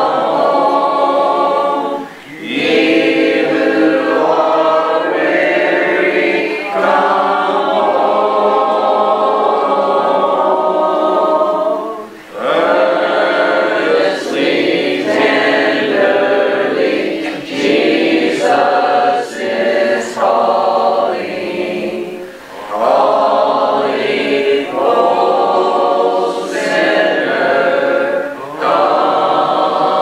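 A congregation singing a hymn unaccompanied, many voices together, in long phrases with short pauses for breath.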